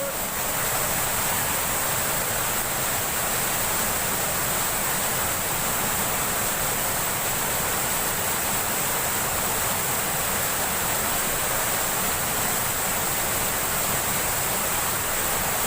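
Steady rush of flowing river water, an even unbroken noise, with a thin steady high-pitched whine on top.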